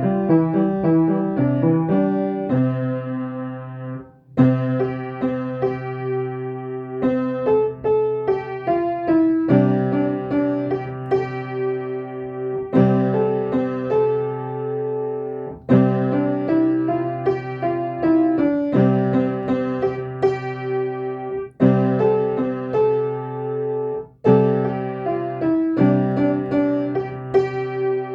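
Solo piano playing slow phrases of sustained chords and melody notes. Each phrase lasts about three seconds, with a short break before the next one starts.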